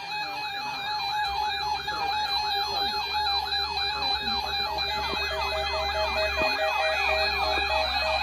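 Electronic warbling siren alarm from a weather alert radio, set off by the NOAA Weather Radio weekly warning alarm test. The pitch sweeps up and down about three times a second over several steady tones, and a short repeated beep joins in past the middle.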